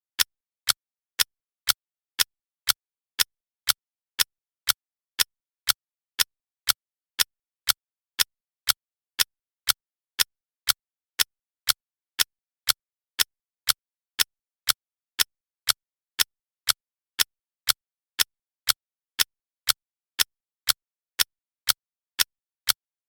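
Clock-like ticking, one crisp tick about every half second, perfectly even, with silence between the ticks.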